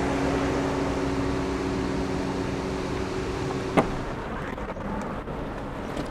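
A car idling with a steady hum, then one sharp click about four seconds in as the car door is opened; after it the sound turns quieter and duller, as heard from inside the cabin.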